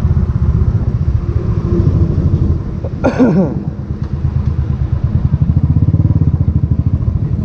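Motorcycle engine running under way at riding speed, its exhaust pulses steady and fast. The engine eases off about two and a half seconds in, then picks up again after four seconds. A short sound falling in pitch cuts in about three seconds in.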